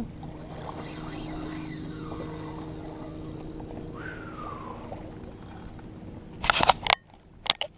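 A steady low hum over faint water and wind noise from a kayak on open water, with a short falling tone about four seconds in. Near the end, a hand grabbing the head-mounted action camera makes a few loud knocks and rubs.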